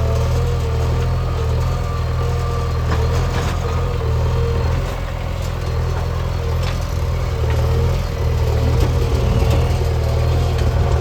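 Heavy diesel engine running steadily at a low, even pitch, with a few faint clicks, growing slightly louder about eight seconds in.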